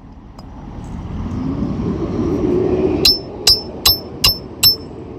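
Five hammer blows driving a roofing nail through a shingle, a little under three a second, each with a short metallic ring. Before them a car passes, its sound swelling and fading.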